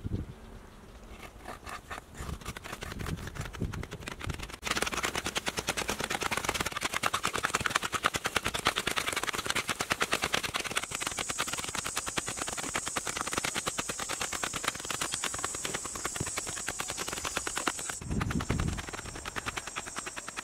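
Hoes chopping into dry, hard-packed earth: a few scattered strikes at first, then a fast, even run of sharp strikes from about a quarter of the way in. A steady high-pitched buzz joins about halfway through.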